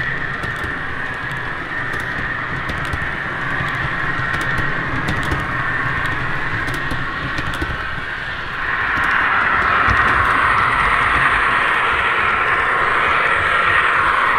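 An O gauge MTH NJ Transit GP40 model diesel locomotive running on the layout, with Proto-Sound 2 diesel engine sound over a steady rushing hum of wheels on track and light clicks. The sound gets louder about nine seconds in.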